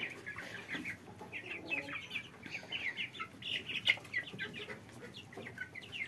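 A mixed flock of young chickens and ducklings feeding, with many short, high, falling peeps and chirps all through.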